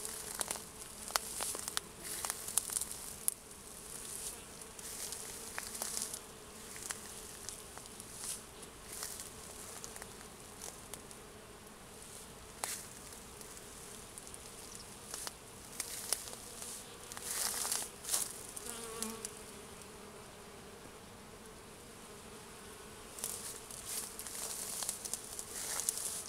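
Bees buzzing steadily as they work raspberry blossoms, pollinating the flowers, with one passing close with a brief rising buzz about two-thirds of the way in. Leaves rustle on and off over the buzzing, most around two-thirds of the way in and near the end.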